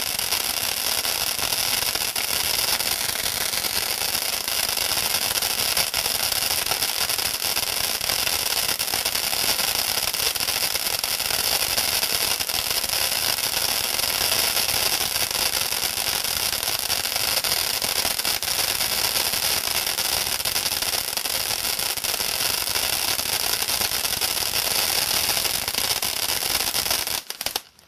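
Red Apple P3104 Fire Fighter firework fountain spraying sparks: a steady, dense hiss laced with fast crackling. It cuts off abruptly near the end as the fountain burns out.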